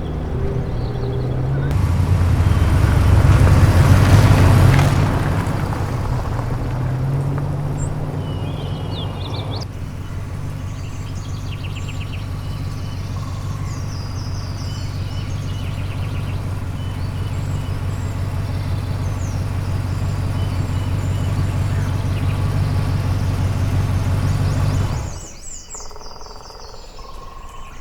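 A motor running steadily with a low hum, louder for a few seconds about 2 to 5 seconds in, while birds chirp. It cuts off abruptly near the end, leaving quieter outdoor ambience with bird chirps.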